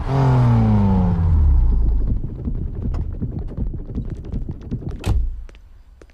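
Peugeot RCZ R's turbocharged 1.6-litre four-cylinder engine, its note falling steadily in pitch over the first two seconds, then a low rumble with scattered ticks. About five seconds in, a car door shuts with one sharp thud, followed by a few faint clicks.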